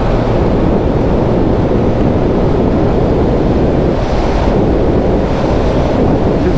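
Steady wind rush buffeting the rider's microphone at road speed, with a TVS Apache RR310's single-cylinder engine running beneath it while cruising.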